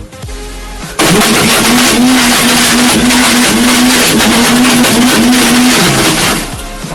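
Electric blender motor running loudly while churning Coca-Cola, with a steady whine over a dense churning noise. It switches on abruptly about a second in and winds down, its pitch dropping, about six seconds in.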